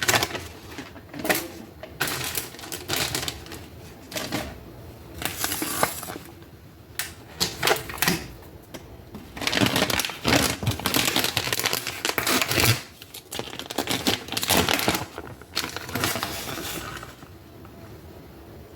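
Plastic bag of shredded cheese crinkling and rustling in irregular bursts as cheese is shaken out over the pan, with scattered sharp clicks and taps.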